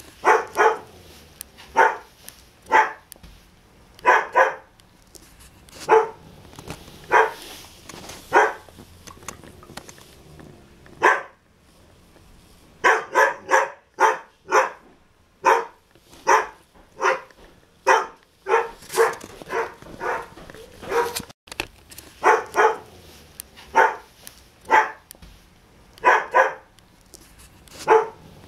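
A dog barking over and over in short, sharp barks, about one to two a second and sometimes in quick pairs, with a brief pause a little before the middle.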